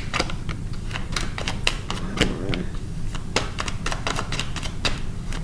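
Tarot cards being handled and dealt from the deck onto the table: a quick, irregular run of sharp card clicks and snaps over a steady low hum.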